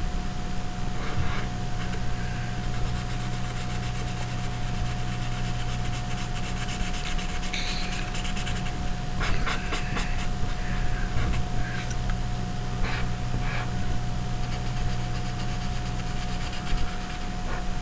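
Marker rubbing and scratching across paper in short, irregular strokes, over a steady low hum with a thin high tone.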